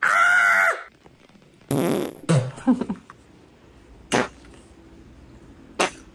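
A comic sound effect: a loud, buzzy squawk with a wobbling pitch, lasting under a second. It is followed by a few short knocks as small beanbags from a mini cornhole game are tossed and land on a tiled counter.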